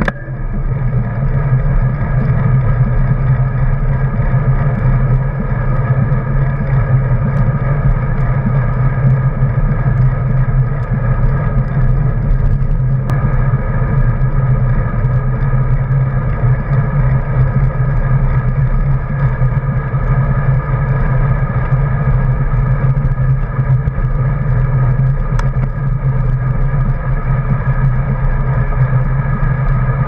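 Motor vehicle engine running at a steady, unchanging speed: an even hum that holds throughout.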